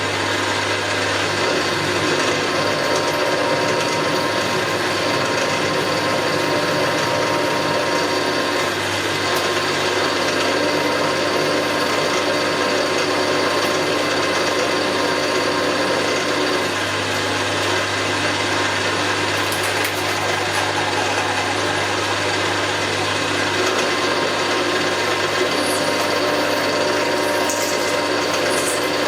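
Metal-cutting machine tool running steadily with a cut in progress on a metal plate, the motor and gearing giving a steady hum under the cutting noise.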